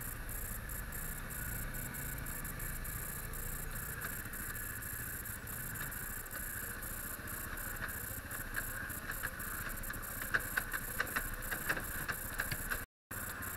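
An ATV engine running steadily as the quad rides along a dirt trail, heard from a camera mounted on the machine. Sharp rattles and knocks come through from about eight seconds in, and the sound cuts out briefly near the end.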